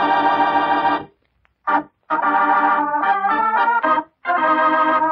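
Organ music: a dramatic closing sting of held chords, broken by two short pauses, the kind that ends an old-time radio drama scene.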